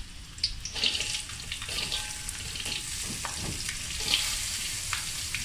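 Chopped red onions tipped into hot oil in a wok with whole spices, sizzling and crackling as they land; the sizzle starts about half a second in and keeps going.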